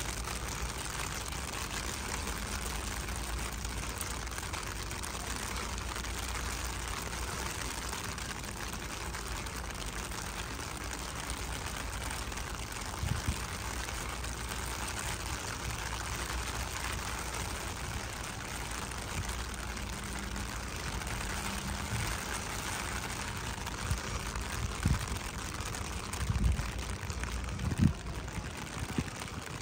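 Steady rain falling, an even hiss throughout, with a few dull low thumps in the second half.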